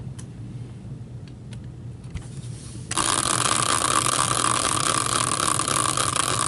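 Spinning prize wheel: a dense, steady whirring rattle that starts abruptly about three seconds in, after a few faint clicks.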